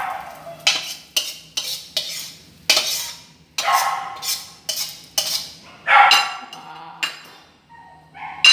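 Metal spatula scraping fried rice out of a stainless steel wok onto a plate: a series of scrapes and clinks, some longer ringing scrapes, and a sharp metallic clink near the end.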